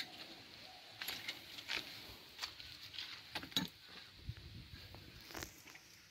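Scattered, irregular light clicks and taps, with a dull low thump a little past the middle.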